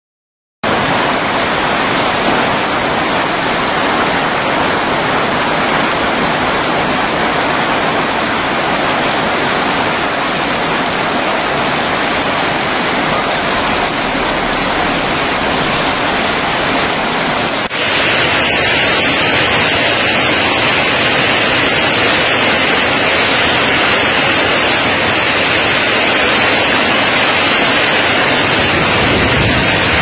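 Heavy tropical summer-storm downpour: torrential rain pouring steadily, turning louder and harsher after a cut about eighteen seconds in.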